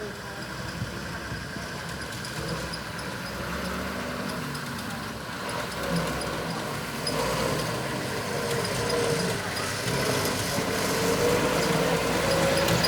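Engine of heavy construction machinery running steadily, growing gradually louder, with a faint wavering whine.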